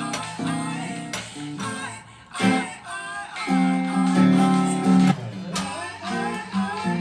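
Acoustic guitar strumming chords, with a voice singing along. The playing briefly drops away about two seconds in, then resumes with a long ringing chord.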